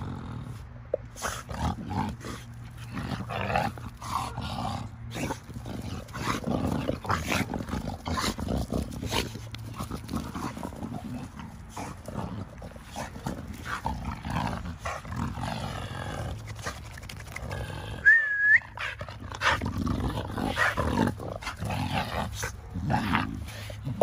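Two American pocket bullies play-wrestling, with grunts, snorts and growls coming in irregular bursts. About three-quarters of the way through there is one short, high-pitched squeal.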